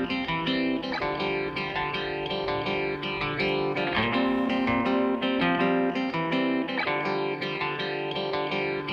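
Background music led by guitar, with sustained chords changing about once a second.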